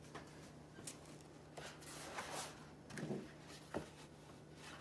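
Large sheets of artwork paper being handled and laid down in a portfolio: faint rustles and a few light taps and clicks, over a low steady hum.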